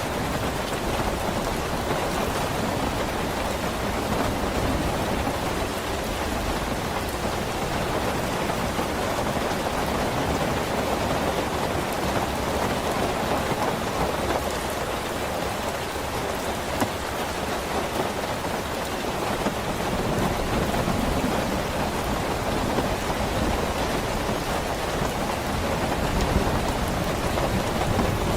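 Steady, heavy rain falling as an even hiss, with low rumbles of distant thunder near the start and again toward the end.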